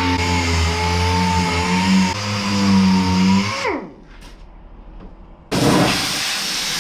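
Handheld power tool, such as a grinder or sander, running at a steady high whine, then switched off and spinning down about three and a half seconds in. About a second and a half later comes a loud hiss lasting about two seconds.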